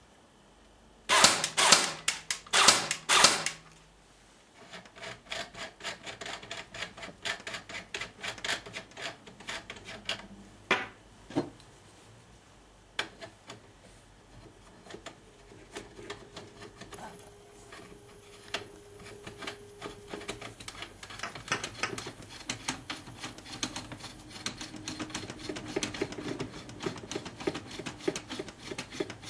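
A few short, loud bursts of rapid clicking about a second in. Then a long stretch of irregular clicks, scraping and rubbing as hands handle and take apart a tubular airsoft suppressor.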